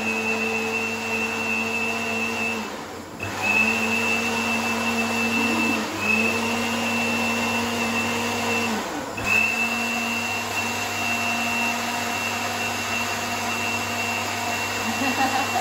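Electric countertop blender running, blending boiled corn into corn milk. The motor hums steadily, cutting out briefly and starting again about every three seconds for the first nine seconds, sliding down in pitch before the last restart, then runs on evenly.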